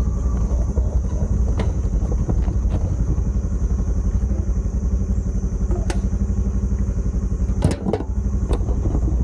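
Single-cylinder four-stroke engine of a Honda 125 moped running under way, a steady low pulsing, with a few short clacks and rattles from the bike.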